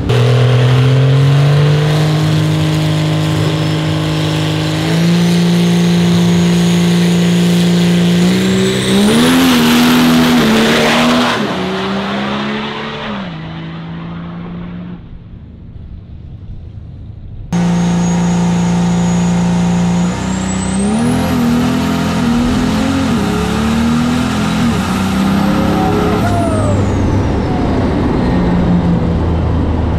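Diesel pickup truck's engine at a drag strip. It holds a steady note with a step up about five seconds in, then launches at full throttle about eight seconds in, climbing in pitch and fading into the distance. After an abrupt cut the engine is heard again at full throttle, stepping up in pitch with each gear change under a high turbo whistle that climbs.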